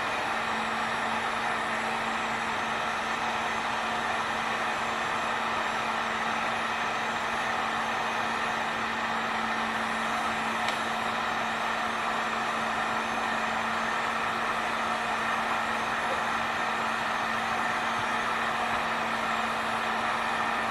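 Electric heat gun running steadily, its fan blowing with a constant hum, used to warm vinyl graphics so they become pliable.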